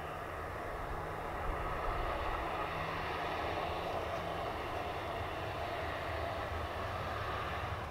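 Steady distant rumble of a passing vehicle, swelling slightly a couple of seconds in and holding steady.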